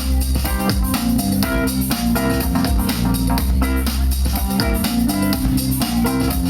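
A band plays an instrumental passage with guitar, bass guitar and drum kit over a steady beat, with no singing.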